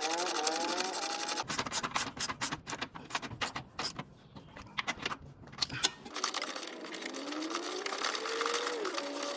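Rapid clicking of a socket ratchet running in the bushing bracket bolts, in quick uneven runs for several seconds.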